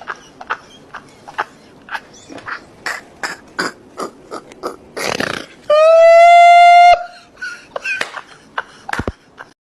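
Excited fans making short sharp noises in quick succession, interrupted about six seconds in by one loud, steady horn blast lasting just over a second.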